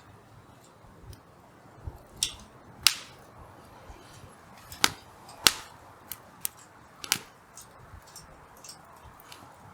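Hardwood campfire crackling, with irregular sharp pops and snaps from the burning logs, a handful of them loud over a faint steady hiss of flame.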